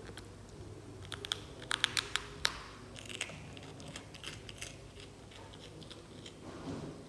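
Baby macaque biting and chewing dry bread: a run of sharp, crisp crunches bunched about one to three seconds in, then thinning out to scattered small crunches.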